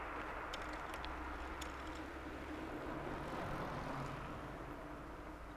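A car passing at a distance, a steady hum that fades toward the end, with a few faint clicks about half a second to a second and a half in.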